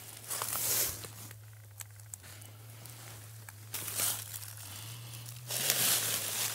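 Rustling and crunching of dry leaves and twigs in a few short bursts, as of someone moving on the forest floor, over a faint steady low hum.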